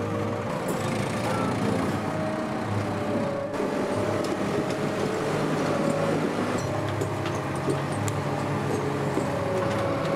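Ponsse Wisent forwarder's diesel engine running steadily, with a few faint clicks in the second half.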